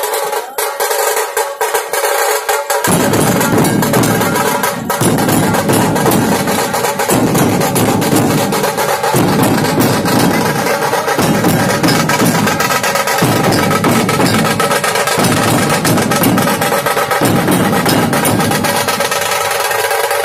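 Loud percussion music: a dense, steady high rattle throughout, joined about three seconds in by deep drum strokes that come in phrases about two seconds long.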